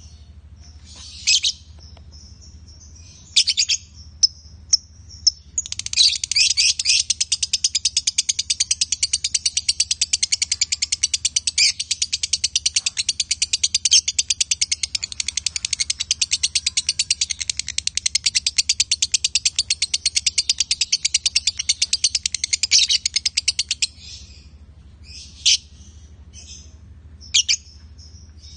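Lovebird singing: a few sharp high chirps, then a long unbroken run of rapid chirps lasting about eighteen seconds that cuts off suddenly, followed by two more single chirps. This long continuous chatter is what Indonesian keepers call a konslet lovebird's song.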